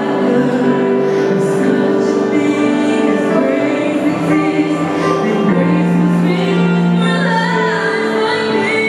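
Mixed a cappella vocal group singing live in close harmony through microphones, a woman's voice leading over held chord notes. A higher wavering melodic line comes in about six seconds in.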